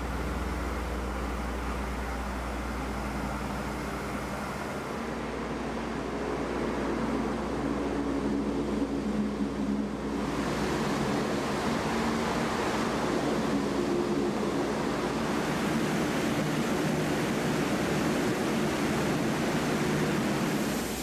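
Landing Craft Air Cushion (LCAC) hovercraft running: a steady mechanical roar from its engines and propellers, mixed with wind and spray noise. The sound shifts in character about five seconds in and again about ten seconds in.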